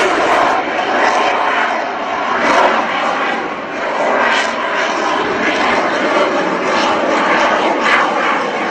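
Loud, steady jet engine noise from a Lockheed Martin F-22 Raptor's two Pratt & Whitney F119 turbofans as the fighter flies overhead, swelling and easing slightly.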